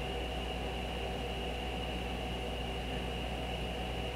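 Steady background hiss with a low hum and a faint high whine: room tone, no other sound.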